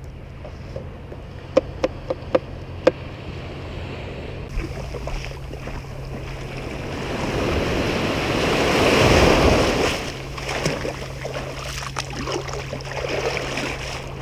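Shallow surf washing in at the water's edge: a wave's rush builds to a peak about nine seconds in, then falls back to lighter splashing and lapping. About two seconds in come four sharp clicks.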